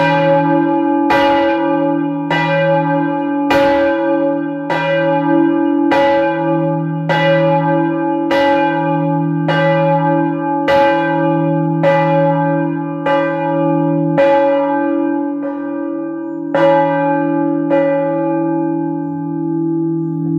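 Medium-large church bell swinging and ringing, its clapper striking about once every 1.2 seconds over the bell's steady hum. The strikes stop about three seconds before the end and the bell hums on as the ringing winds down.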